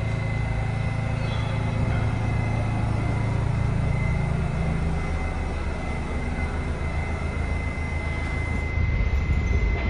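R68 subway train standing at the platform, its equipment humming steadily under a thin high tone; the hum fades about five seconds in. Near the end, the rumble of another train approaching the station grows louder.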